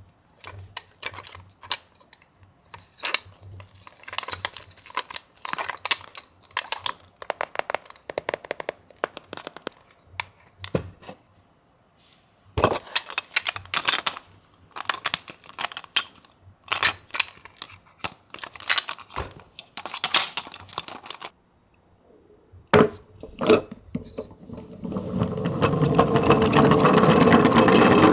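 Small plastic clicks and rattles of a toy ambulance being handled. Near the end a toy ambulance runs down a slope, with a loud rattling rolling noise that builds up and stays loud.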